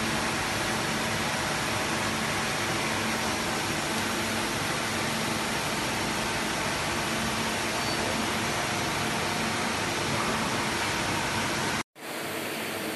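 Steady machine-shop din from CNC machines running on the shop floor: an even hiss-like noise with a faint low hum. It cuts out for an instant near the end and comes back a little quieter.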